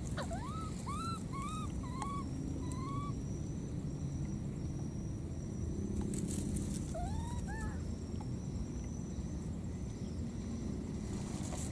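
Baby macaque cooing: about five short, arched calls in a quick run, then two or three more a few seconds later. These are the plaintive contact calls an infant macaque gives when separated from its mother.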